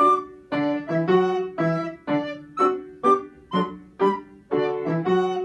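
Recorder playing a melody with Yamaha upright piano accompaniment, the notes falling in a steady rhythm of about two a second.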